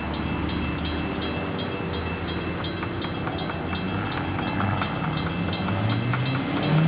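Level-crossing warning bell ringing in quick, even strokes. Near the end an approaching train's horn starts to blow, a low tone that rises in pitch and becomes the loudest sound.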